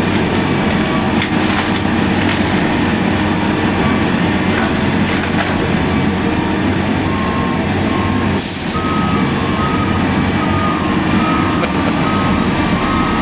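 A heavy engine-driven machine running steadily at work on a tree, with wood cracking and splintering now and then in the first few seconds and a short hiss about eight seconds in.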